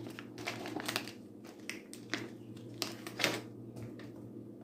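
Crinkling and rustling of a stand-up plastic snack pouch being handled and pulled open: a run of short, irregular crackles.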